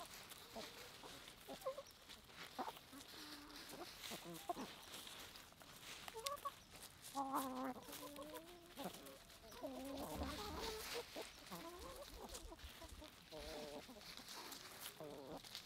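A flock of backyard chickens clucking, with short calls coming in irregular runs, busiest around the middle.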